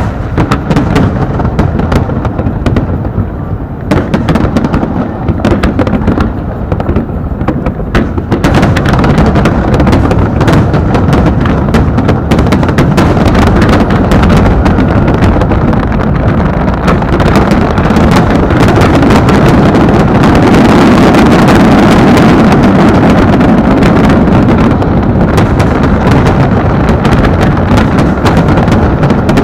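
Aerial fireworks shells bursting: separate bangs for the first several seconds, then from about eight seconds in a dense, continuous barrage of explosions, very loud.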